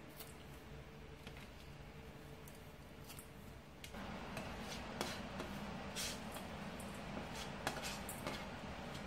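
Kitchen scissors snipping dried pollack shreds, a few soft clicks. About four seconds in, sliced Cheongyang chilies are tipped from a small metal tray into a stainless steel bowl, with scattered taps and clinks of metal on metal.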